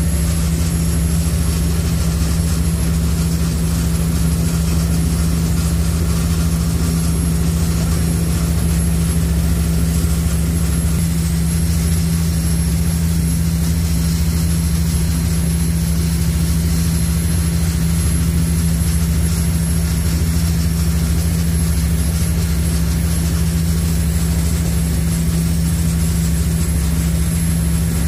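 High-speed passenger ferry's engines running at cruising speed, heard on board as a loud, constant low drone that does not change.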